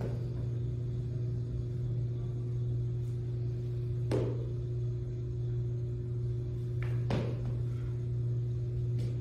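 Steady low hum of room or recording noise with a fainter steady tone above it, broken by three short soft thumps about four, seven and nine seconds in.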